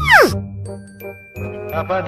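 A cartoon falling-whistle effect ends in a sudden steep downward swoop with a short crash-like burst. Bouncy, tinkling background music follows, and a wobbling, warbling sound joins near the end.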